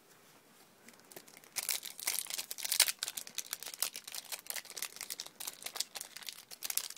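Foil Yu-Gi-Oh booster pack wrapper crinkling and tearing as the pack is opened, in a dense run of rapid crackles that starts about a second and a half in.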